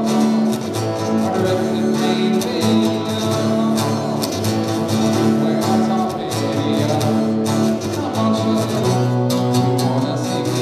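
Acoustic guitar strummed in a steady rhythm, playing chords as song accompaniment.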